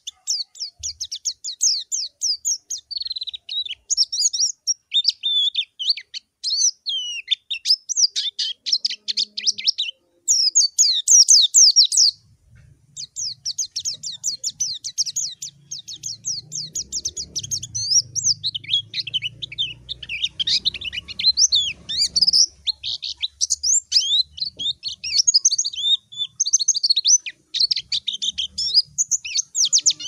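White-eye (pleci) singing a fast, continuous twittering song of high, quick chirps, the challenge song it uses to call out a rival, with one brief break midway.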